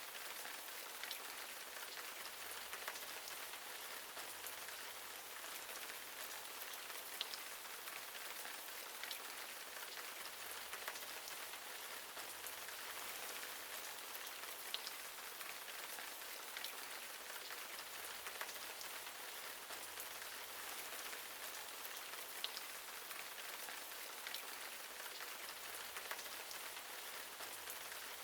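Steady hiss of falling water, with scattered light ticks a second or two apart.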